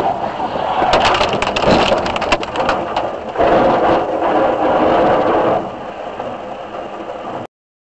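A head-on collision between a van and a lorry on the road ahead, heard through a car's dashcam as a burst of sharp cracking and crunching, followed by a louder stretch of rushing road noise. The sound cuts off abruptly near the end.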